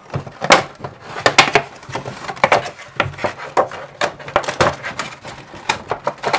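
Clear plastic packaging and cardboard of a doll box crackling and snapping as they are handled and pulled open. It is a run of irregular sharp crackles and clicks.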